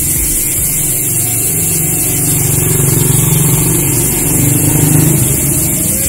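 Speedone Soldier rear hub's 6-pawl freehub ratcheting in a fast, continuous buzz as the rear wheel spins freely and coasts. It swells a little around the middle and again near the end.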